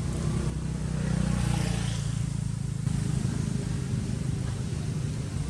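A steady low engine drone, swelling briefly with a rushing hiss between about half a second and three seconds in.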